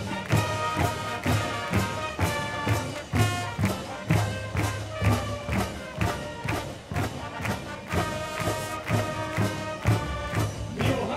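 Marching band playing a march: full brass chords over a steady drum beat of about two beats a second.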